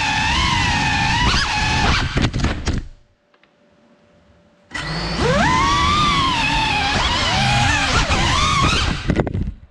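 Geprc Cinelog 35 6S ducted cinewhoop's motors and propellers whining, the pitch rising and falling with the throttle. About two to three seconds in, a few knocks come and the motors cut out. They spin back up about a second and a half later and run until more knocks just before they stop again at the end.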